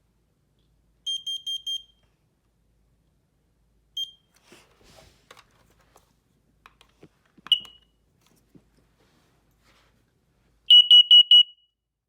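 Combination smoke and carbon monoxide alarm sounding during a test: a burst of four quick, high, piercing beeps, two single beeps with faint clicks of handling between them, then a louder burst of four quick beeps near the end. The four-beep pattern is the carbon-monoxide alarm signal.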